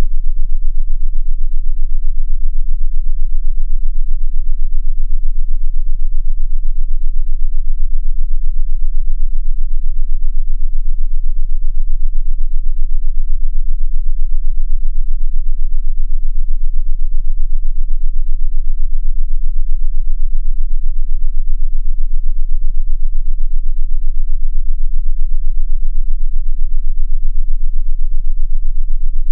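Synthesized very low-pitched tone played as a sound-therapy 'frequency', loud and steady with a fast pulsing throb in its level.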